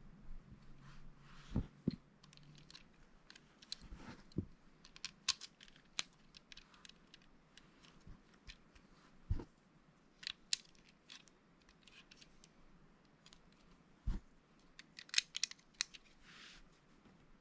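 Lego bricks being handled and pressed together: irregular sharp plastic clicks and taps, a few duller knocks, and brief rustling as pieces are picked up.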